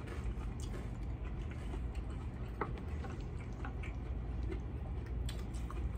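Quiet eating sounds: chewing, with scattered small clicks and ticks a second or so apart, over a steady low hum.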